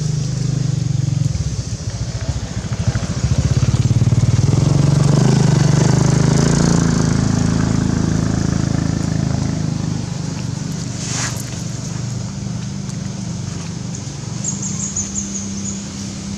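An engine running steadily, growing louder a few seconds in and easing off again after about ten seconds, with one sharp click partway through.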